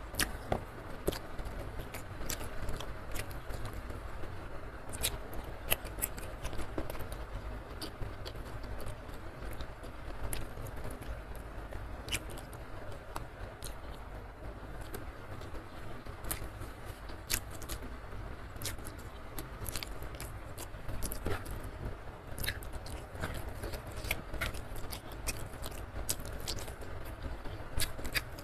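Close-miked eating by hand: chewing of rice, petai beans and fried salted fish, with many short, sharp wet clicks and smacks at an irregular pace, over a steady low hum.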